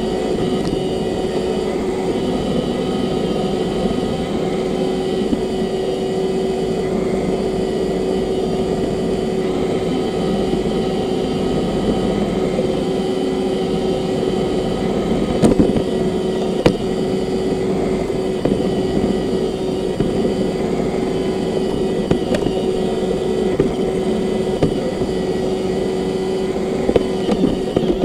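Roomba robot vacuum running: a steady mechanical hum of its motors and brushes with one constant tone. It is joined by a few short knocks around the middle.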